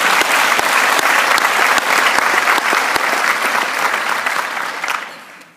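Theatre audience applauding, a dense patter of many hands clapping, which dies away near the end.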